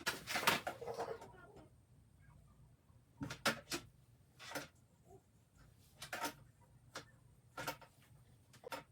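Handling noise: a brief rustle in the first second or so, then a string of light clicks and taps, about eight, spaced roughly a second apart.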